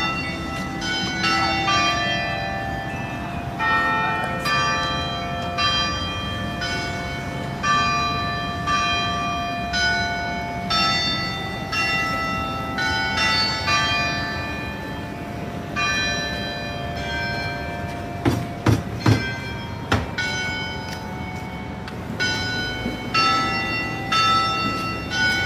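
Church bells ringing a run of different notes, struck one after another about once or twice a second, each note ringing on. A few short loud knocks come about three quarters of the way through.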